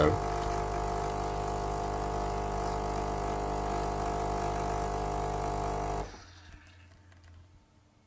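Gaggia Brera super-automatic espresso machine's pump running with a steady hum while it brews a long pour of espresso into the cup. It cuts off suddenly about six seconds in as the pour ends, leaving only a few faint ticks.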